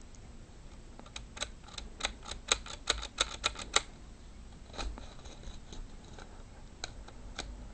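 Plastic K'nex pieces clicking as a K'nex rifle's ram is pulled back along its rail: a quick, uneven run of about a dozen light clicks, then a few scattered clicks.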